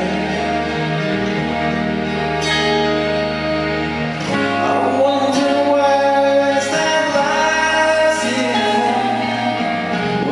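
Live pop band performing: loud, steady music with sustained chords and a low bass line, with singing over it.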